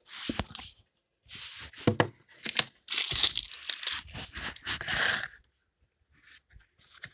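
Paper being torn and crumpled in several rasping bursts over about five seconds.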